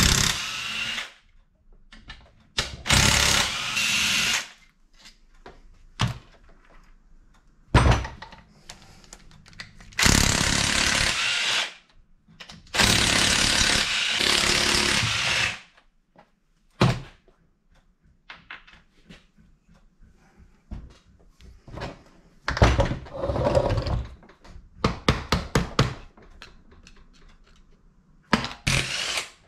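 Impact wrench run in about half a dozen bursts of one to three seconds, loosening the nuts that hold the gears on a Yamaha Banshee engine, with clinks and knocks of tools and parts in between.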